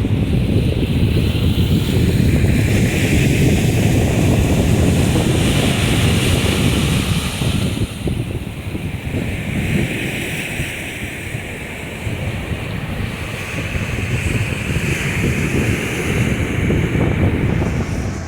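Sea surf washing onto the shore, swelling and easing every few seconds, with heavy wind rumble on the microphone.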